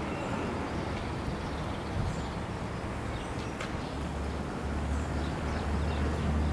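Outdoor railway station ambience: a steady low hum that grows stronger about two-thirds of the way in, with a few faint bird chirps and a single light clank about halfway through.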